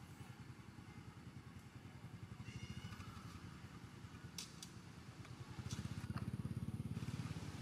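A small engine running with a fast, even throb that gets louder about six seconds in. A brief high chirp and a couple of sharp clicks come near the middle.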